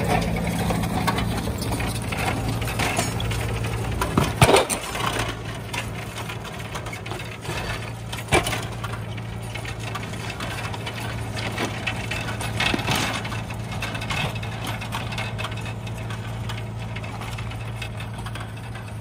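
John Deere 6115M tractor's diesel engine running steadily. A higher tone in its sound drops out about a second in, and two sharp knocks come through, about four and a half and eight seconds in.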